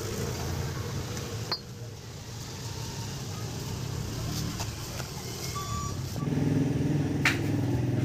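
A motor vehicle engine running steadily, getting louder about six seconds in, with two sharp clicks along the way.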